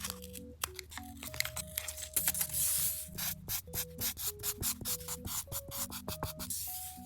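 Paper being rubbed and rustled by hand: a longer scratchy hiss, then a run of quick rubbing strokes about four a second, over soft background music.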